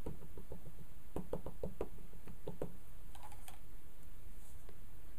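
A Memento ink pad dabbed repeatedly onto a clear stamp on an acrylic block: a quick run of light plastic taps, about five or six a second, that stops about two and a half seconds in.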